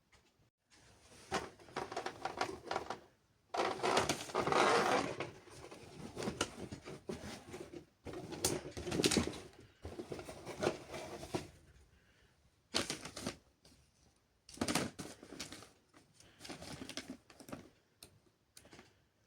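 Irregular clicking, clattering and rustling from toy washing machines being handled, in several bursts of a second or two with short pauses between.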